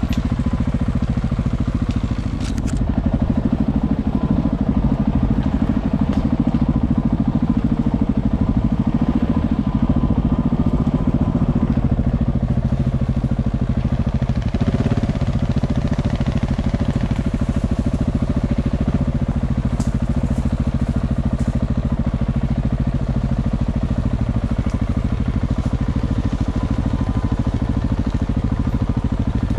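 Motorcycle engine running steadily at low trail speed on a dirt forest track, with a few light clicks and crackles from twigs and stones under the tyres.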